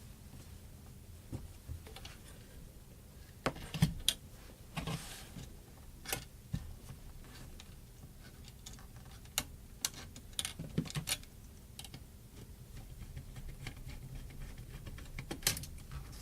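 Scattered small clicks and taps from hand tools, wires and crimped ferrules being handled, coming irregularly a few seconds apart.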